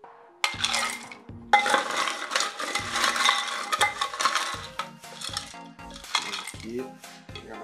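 Ice cubes clattering as they are scooped from a glass ice bucket and tipped into a copper mug, several scoops one after another.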